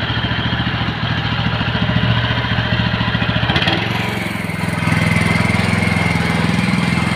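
Rover Rancher riding lawn mower's engine running steadily as the mower is driven, with a brief break in the sound about three and a half seconds in and a faint high whine over the engine afterwards.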